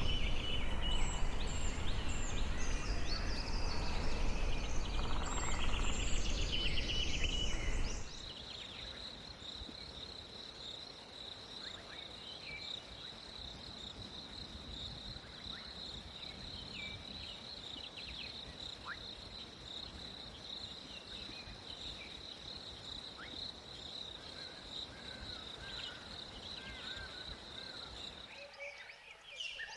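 Wild birds chirping and calling over loud outdoor noise. About eight seconds in, the recording changes to a quieter one with a steady high-pitched trill and scattered faint chirps.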